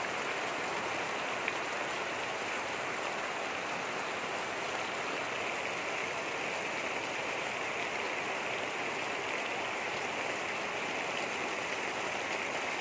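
Steady rain falling, an even hiss with one small tick about a second and a half in.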